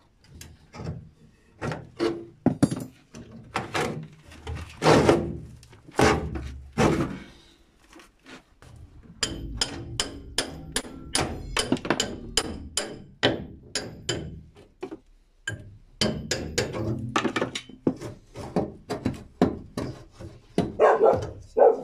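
Old stem strip being pried off the riveted aluminium hull of a Kazanka 5M4 boat with a steel pry bar: irregular metallic knocks and clanks as the bar levers the strip. About nine seconds in, and again from about sixteen seconds, come faster runs of several knocks a second as the strip works loose.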